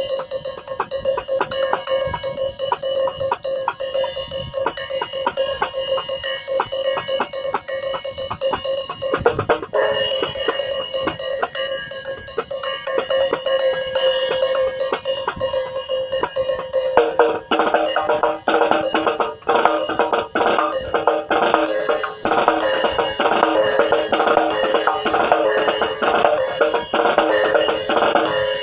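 Snare drum with an Evans head played alongside a ride cymbal in an independence exercise: the ride keeps a steady pattern while the snare plays its own quick strokes. The playing turns busier and fuller about two-thirds of the way through.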